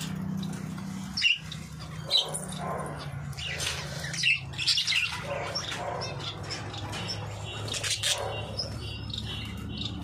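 Pet budgerigars chirping and chattering in a wire cage as they are fed, many short high calls. Two sharp knocks come about a second and two seconds in, over a steady low hum.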